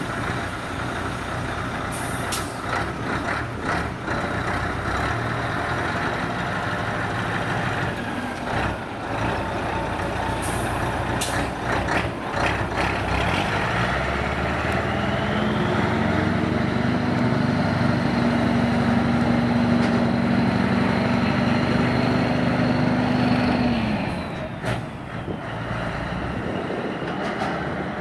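Scania V8 truck engine running, then revving up about halfway through and holding high for several seconds with a faint whistle before dropping back. Several short sharp air hisses come in the first part.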